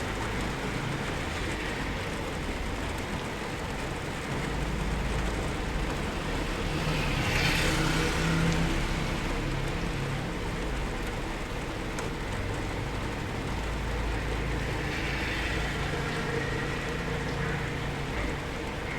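Steady rain heard from indoors, a continuous even patter and hiss. A low rumble swells in twice, about a quarter of the way in and again past the middle, with a brief rise in hiss at the peak of the first.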